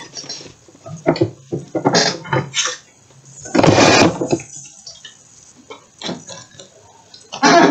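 Rustling and crinkling of a foil trading-card booster pack being handled, in several separate bursts, the loudest about four seconds in.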